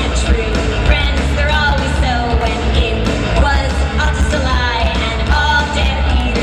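Loud live rock band with a sung vocal line over bass and drums.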